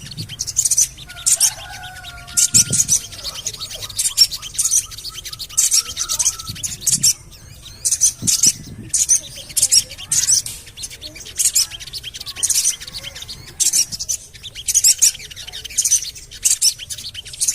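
Sogon bird calling in quick clusters of short, very high chirps (the "cuit-cuit-cuit" call), with a few fainter lower whistled notes between the clusters. This is the call that keepers play as a lure to get another sogon to start singing.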